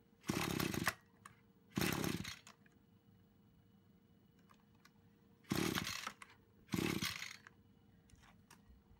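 Brush cutter's small engine being pull-started four times, in two pairs, each pull of the recoil starter turning it over for about half a second without it catching. These are restart attempts after the engine stalled when the throttle was opened.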